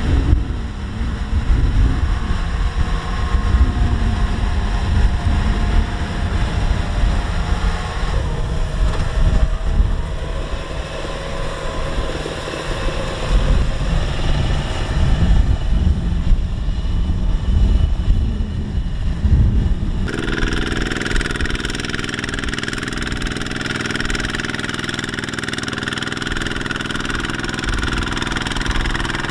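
A Kubota crawler combine harvester's engine running as the machine crawls through mud, an uneven low rumble. About two-thirds of the way in it cuts sharply to a two-wheel walking tractor's single-cylinder diesel engine running steadily as it pulls a loaded trailer through the mud.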